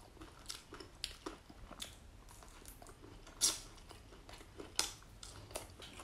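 Close-up chewing of crispy grilled crocodile, with scattered short crunches, the loudest about three and a half seconds in.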